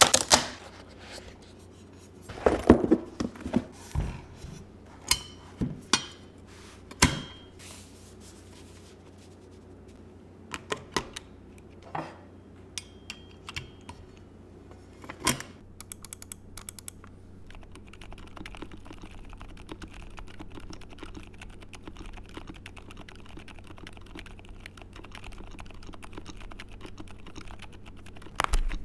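Typing on a Neo75 Cu custom mechanical keyboard built to be silent. In the first half come scattered, louder clicks and knocks; from a little past the middle, a steady fast run of soft, muffled keystrokes.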